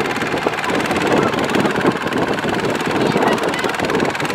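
Kubota ZT155 single-cylinder diesel of a two-wheel walking tractor running under load, a rapid, even chugging, as it drags a loaded trailer through deep mud.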